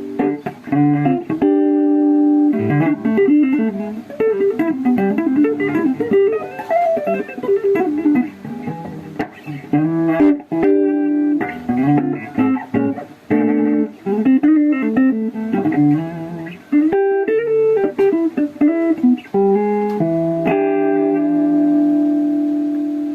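Electric guitar played solo: single-note lead lines with bends and vibrato, broken by short pauses, ending on a held note that rings out.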